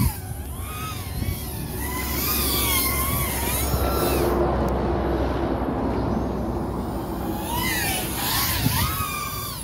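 FPV drone flying nearby, its motors whining in several tones that waver up and down in pitch with the throttle. A rushing noise swells in the middle.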